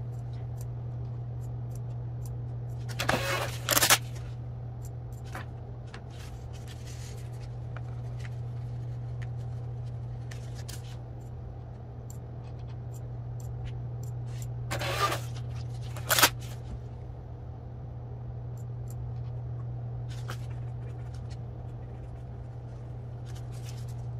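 Printed thermal shipping labels being handled: short paper rustles and scrapes about three to four seconds in and again about fifteen seconds in, with a few faint clicks, over a steady low hum.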